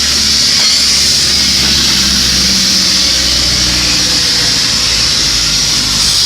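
An engine running steadily with a low rumble, under a constant high hiss.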